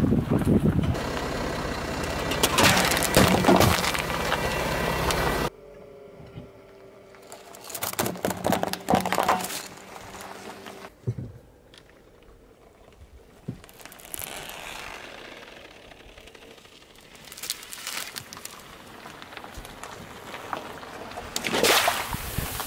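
A car tyre crushing a watermelon: loud, wet crunching and crackling for the first five seconds, stopping abruptly. Then quieter scattered crunches and crackles, and near the end a loud splash as a skin full of orange soda bursts under the tyre.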